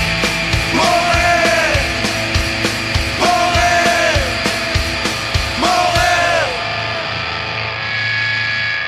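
Oi!/punk rock band playing loud, with driving drums, distorted guitars and three falling, sliding notes. About six and a half seconds in the drums stop and a final chord rings on.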